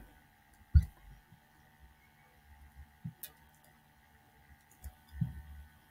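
Quiet room tone with a faint steady electrical hum, broken by a few short computer-mouse clicks: one about a second in and a pair about three seconds in, with a soft low thump near the end.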